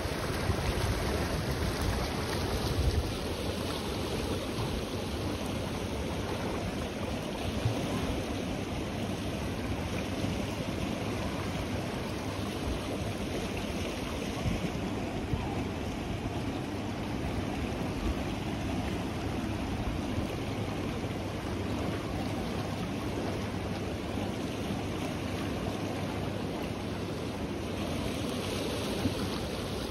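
The Ganges river in fast flow, its turbulent water rushing with a steady, even noise.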